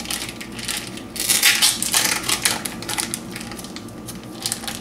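Plastic meat packaging crinkling and rustling as hands pull it open around a raw pork roast, with the loudest crackling a little over a second in.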